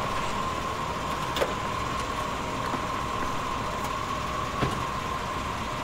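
Stretch limousine rolling up to the curb with its engine running, over a steady high tone. Two short clicks come about a second and a half in and again near the end.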